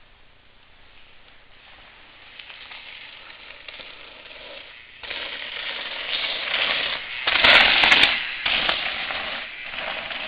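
Mountain bike tyres crunching and crackling over a loose dirt trail, growing louder as the bike comes closer. The noise jumps up about five seconds in and is loudest between about seven and eight seconds in, with a few sharp ticks, then eases.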